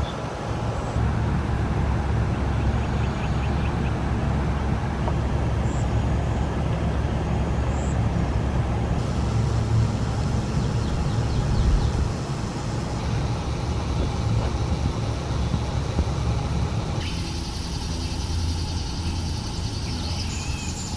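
Outdoor ambience: a steady low rumble with an even hiss, and faint high-pitched trills above it. The background changes abruptly a few times.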